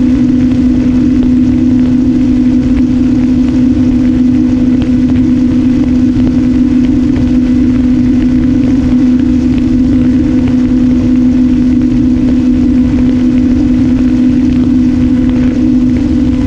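Electric motor and propeller of an RMRC Strix Strato-Surfer FPV flying wing running at a steady cruise throttle, one unchanging hum, with wind rushing over the onboard camera's microphone.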